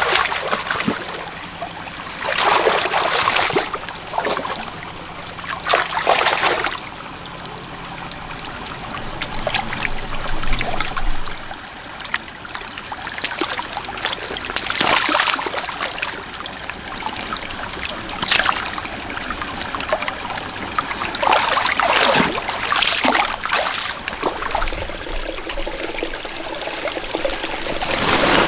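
Water trickling and splashing, with about eight louder rushes of roughly a second each, like water being poured or thrown in a muddy pond.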